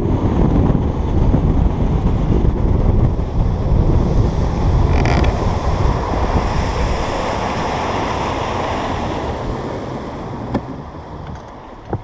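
Wind buffeting the microphone and water rushing against a moving bass boat. The noise eases off over the last few seconds as the boat slows. A few sharp knocks come near the end.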